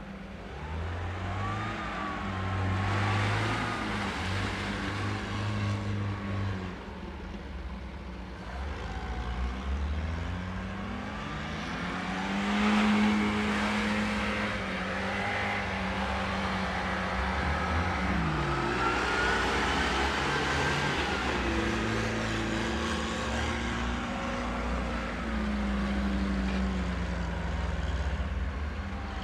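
Engines of a Lada Niva and UAZ off-roaders revving as they drive through snow and mud, the engine note rising and falling again and again.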